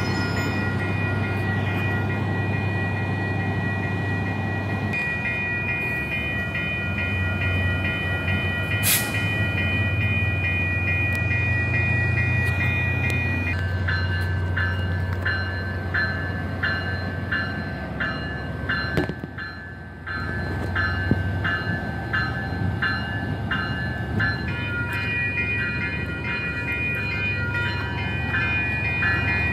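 Exo commuter train's diesel locomotive running at the platform: a steady low engine hum with high steady tones above it. A regular ticking joins from about halfway, and the sound briefly drops a little past two-thirds through.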